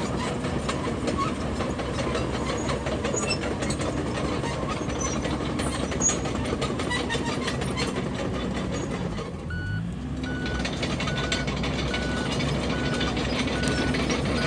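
Komatsu D31PX crawler bulldozer working: the engine runs under load and the steel tracks clank continuously. About two-thirds of the way in the engine note rises briefly, and then the reversing alarm beeps steadily as the dozer backs up.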